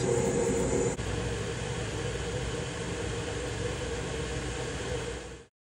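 Steady fan and machine hum of a laser engraver running, which stops suddenly just before the end.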